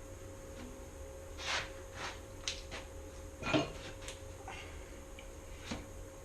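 Body filler spreader scraping and tapping now and then as half-set body filler is worked: a few short, separate scrapes and light knocks over a faint steady hum.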